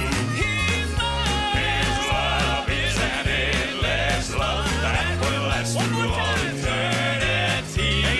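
Southern gospel quartet singing with band accompaniment over a steady bass line.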